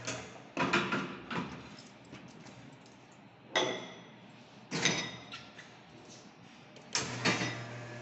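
Metal clacks and knocks as a portafilter is locked into the group head of a Casadio commercial espresso machine and ceramic cups are set on its metal drip tray. About seven seconds in, the machine starts the shot with a steady low hum.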